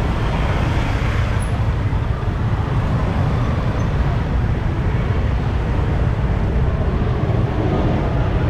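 Scooters and motorbikes running at low speed close by, a steady traffic noise with a strong low rumble and no single event standing out.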